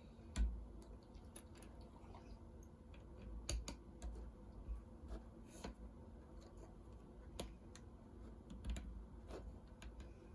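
Scattered small clicks of plastic Lego pieces being handled and pressed together, with a few dull low thumps, the loudest about half a second in.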